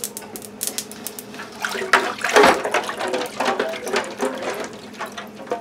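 A hand swishing blanched potato strips and ice cubes around in a sink full of ice water: repeated splashing with clicks and clatters, busiest a couple of seconds in.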